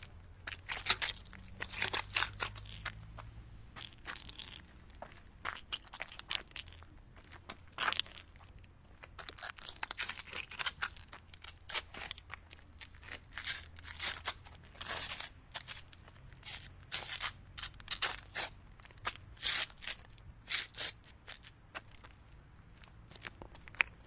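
Small hard objects being handled and rummaged through, making irregular clicks, clinks and short scrapes over a faint low hum.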